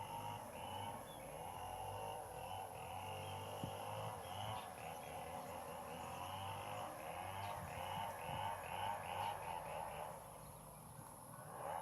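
Outdoor ambience of insects and birds calling, with a steady wavering chorus and a rapid series of repeated chirps in the middle stretch.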